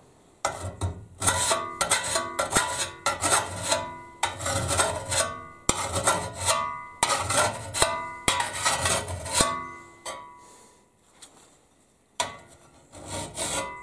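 Hand file drawn in quick, repeated strokes across the cutting edge of a McLeod fire tool's steel head clamped in a vise, each stroke rasping, with the blade ringing. The strokes stop for about two seconds, then start again near the end.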